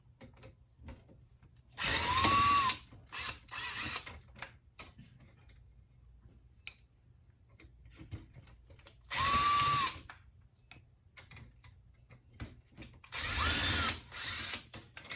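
Small electric screwdriver backing out screws from a navigation unit's circuit board, in three main short bursts of motor whine that rise and fall in pitch. Small clicks of the screws and parts being handled come between the bursts.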